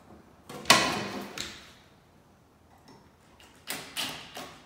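Knocks and clunks from handling the ceiling fan's metal mounting parts and a cordless drill: one loud clunk that rings off about a second in, and a quick cluster of knocks near the end.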